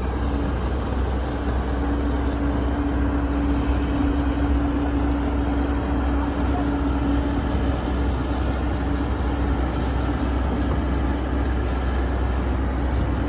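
Heavy diesel engine running steadily at a constant speed, with a low, even drone and a steady hum.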